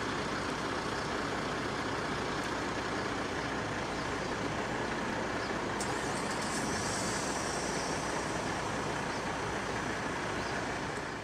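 Steady truck-stop traffic noise: an even rumble and hiss from trucks and road traffic. A higher hiss comes in about six seconds in, and the noise fades out near the end.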